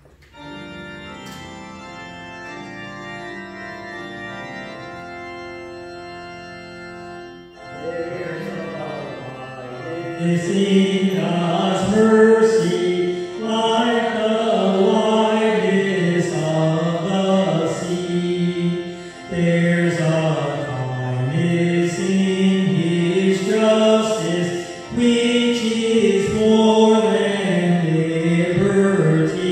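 Church organ playing held chords as an introduction; about eight seconds in a singer comes in and the organ accompanies the hymn sung at the offertory, the preparation of the gifts.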